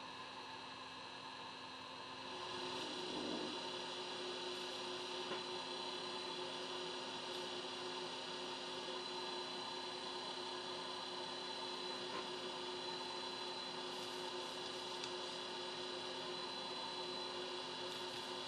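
Steady electrical hum made of several held tones over a hiss, growing louder about two seconds in and then holding steady.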